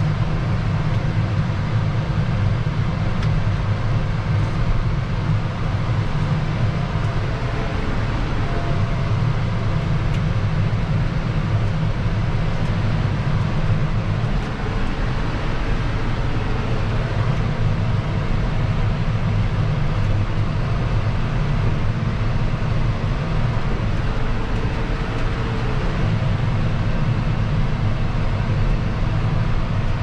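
John Deere 6155R tractor's six-cylinder diesel engine running steadily while pulling a reversible plough, heard from inside the cab.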